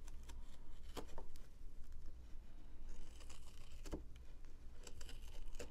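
Spoon hook knife cutting into the end grain of a wood block: a few light clicks and a short scraping cut about three seconds in.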